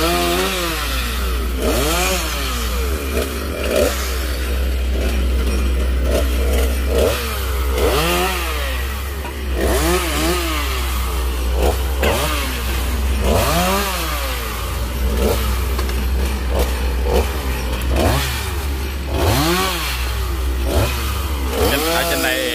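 Chainsaw revving up and falling back again and again, its pitch rising and dropping every second or two as it cuts branches.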